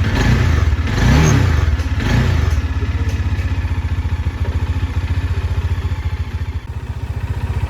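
Bajaj Dominar 400's single-cylinder engine, just started, blipped three times and then settling into a steady idle.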